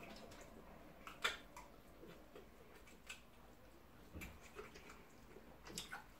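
Faint eating sounds: a metal spoon clicking against a plate now and then, with soft mouth and chewing noises between; the sharpest click comes about a second in.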